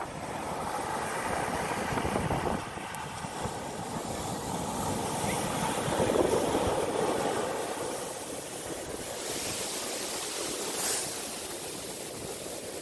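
Sea waves surging and breaking on the shore: a rushing wash of surf that swells up about two seconds in and again around six seconds, with a brief hiss near the end.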